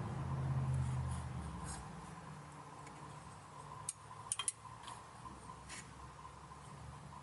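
Spark plug being run in by hand with a socket and ratchet until it binds: faint metallic clicks and ticks of the tool, three sharp ones close together near the middle. A low hum fades out over the first two seconds.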